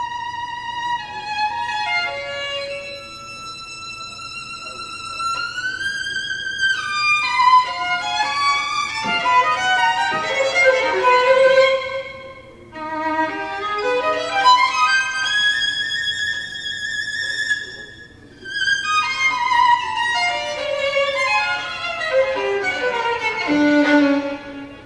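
Recorded violin music played back over hi-fi loudspeakers: a bowed melody of held, wavering notes with pitch slides, pausing briefly between phrases twice.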